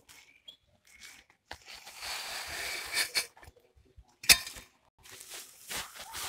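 Dry unhulled rice grains poured from a plate into a woven plastic sack, a rushing hiss for about two seconds. A single sharp knock comes about four seconds in, then rustling of the plastic sacking.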